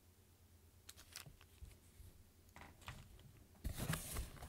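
Packaging being handled: a few faint clicks and taps, then from near the end louder rustling and crinkling.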